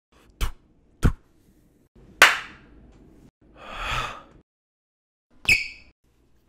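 A sequence of separate cartoon sound effects: two sharp slap-like hits, a louder hit that fades over about a second, a brief swell of noise, and a final hit with a short ringing.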